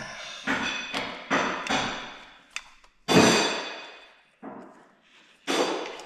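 A series of about eight clanks and knocks on metal, each ringing briefly, at uneven spacing; the loudest is a heavy clank about three seconds in.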